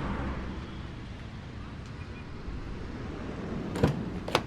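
Steady low background rumble, with two sharp knocks about half a second apart near the end.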